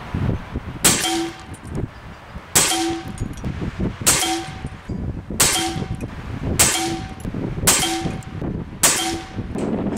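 Air rifle shots at the target: seven sharp, clanging strikes, one every second or so, each with a brief metallic ring.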